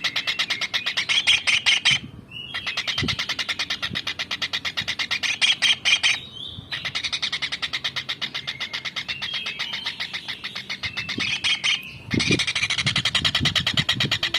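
A small kingfisher (tengkek udang) calling continuously: rapid trains of shrill, sharp notes, about ten a second. They come in long phrases with short breaks about 2, 6 and 12 seconds in. A few faint low thumps lie under it.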